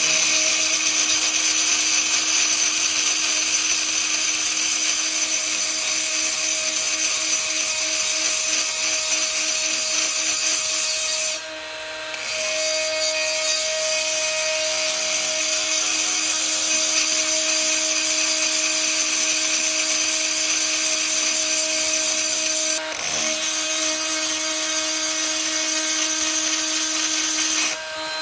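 Die grinder running at a steady high whine, grinding metal burrs out of a baler's bearing race. It eases off briefly about 11 seconds in and again about 23 seconds in.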